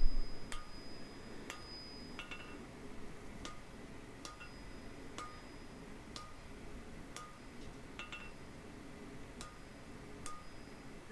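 Hand hammer striking a red-hot steel blade on an anvil while forging the sword's tang, about one blow a second. Each blow leaves a short, high ring from the anvil, and the first one rings longest.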